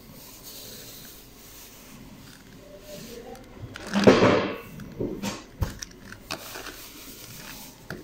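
Plastic 3x3 Rubik's cube being turned by hand: scattered clicks and clacks of its layers turning, with a louder half-second burst about four seconds in.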